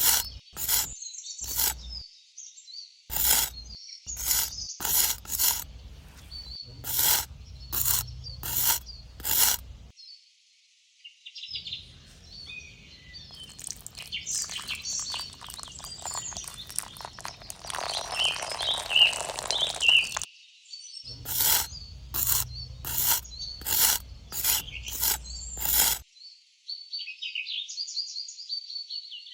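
Birds chirping throughout, under a run of sharp knocks or taps about once or twice a second, which stop for a while and then return near the end. In the middle comes a longer stretch of scraping or rushing noise.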